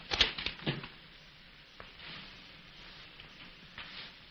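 Steady hiss and crackle of an early (1930) sound-film soundtrack, with a few sharp knocks and scuffs in the first second.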